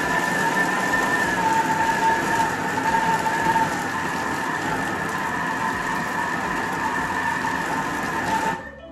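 Thermomix TM6 motor and blades running at speed, mixing a stiff meatball mixture of mince and breadcrumbs in the closed bowl: a steady high motor whine over a loud rushing noise, which cuts off near the end.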